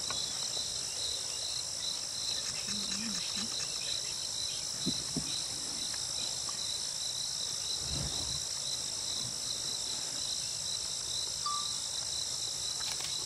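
Dense insect chorus: a steady, high-pitched shrill chirring with a fast pulsing note, with a few faint low sounds underneath.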